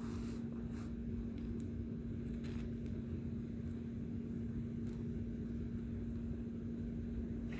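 Steady low hum and rumble, with a few faint clicks.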